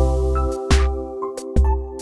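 Background music with deep bass notes under held chords, and a sharp beat a little under once a second.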